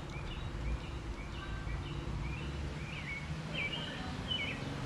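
Outdoor background: a steady low rumble with birds chirping a few short calls, most of them in the second half.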